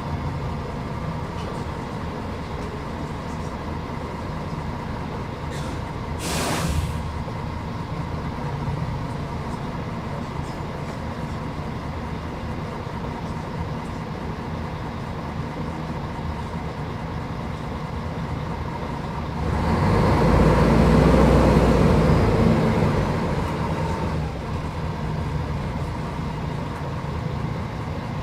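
Mercedes-Benz O500UDA bus's diesel engine running steadily, with a short air hiss from the air brakes about six seconds in. About twenty seconds in, the engine and running noise grow louder for a few seconds, then settle back.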